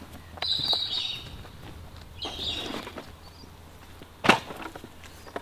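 Handling noises from a chainsaw carry bag being worked on a tree stump: rustling, then a single sharp knock about four seconds in.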